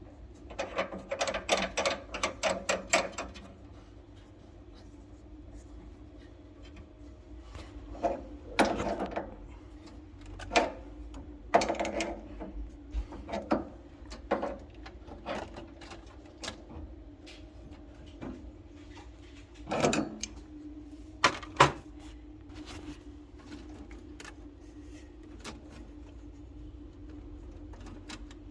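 Hand tools and metal parts being worked while a new gas valve is fitted to a boiler: a quick run of clicks, about five a second, for the first three seconds, then scattered separate knocks and clicks, over a faint steady hum.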